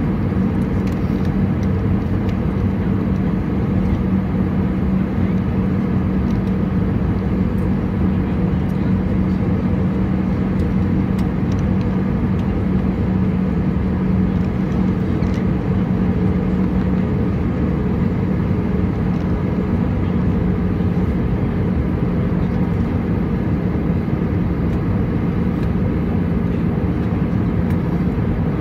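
Steady cabin noise of an Airbus A320 in flight, heard from a seat over the wing: the drone of the jet engines mixed with rushing airflow, with a steady low hum underneath. It holds level throughout.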